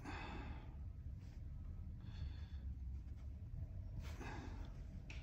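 A person breathing, three soft breaths about two seconds apart, over a low steady hum; the breather has a head cold.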